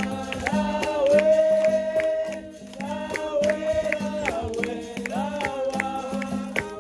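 Capoeira roda music: a voice singing a melody over a berimbau's repeated twanging notes and hand percussion keeping a steady beat.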